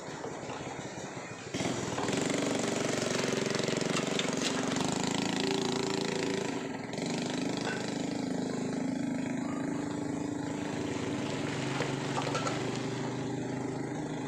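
Kitchen tap running water into a sink, turned on suddenly about a second and a half in: a steady rush with a low hum under it.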